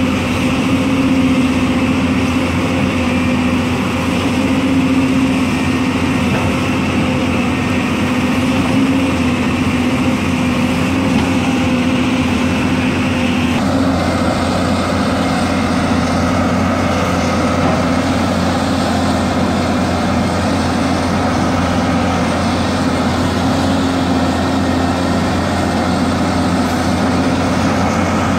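Hyundai crawler excavator's diesel engine running steadily as the machine works, a constant drone with no pauses. About halfway through the sound shifts abruptly in tone and then holds steady again.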